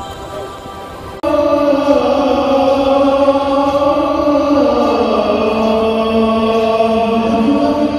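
A solo voice chanting in long held notes, an Islamic chant, cutting in abruptly about a second in. The pitch sinks slowly midway and lifts again near the end. Quieter music plays before it comes in.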